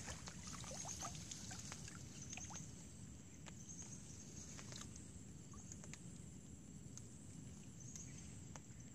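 Faint pond-side ambience: a steady low rumble, short high-pitched chirps repeating every second or two, and a few soft clicks as the fishing line and tackle are handled at the water.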